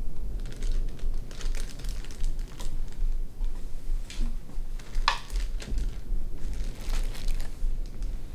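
Crinkling and rustling of a plastic zip-top lunch bag being handled, in short irregular bursts, the sharpest about five seconds in.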